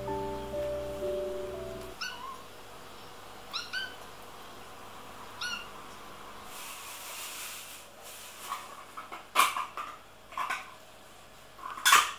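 Kitten giving a few short, high meows, spaced a couple of seconds apart. Soft background music stops about two seconds in, and in the second half several sharp noises follow, the loudest near the end.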